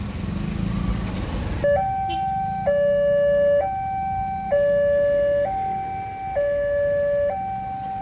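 Railway level-crossing alarm starting a couple of seconds in: an electronic two-tone siren swinging between a higher and a lower tone, each held for nearly a second. A low rumble comes before it.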